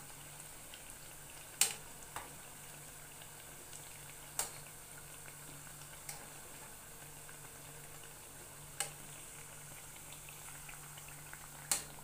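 Mandazi dough pieces deep-frying in hot oil in an aluminium pot: a steady bubbling sizzle, the pieces golden brown and nearly done. A metal slotted spatula clinks sharply against the pot about six times as they are turned.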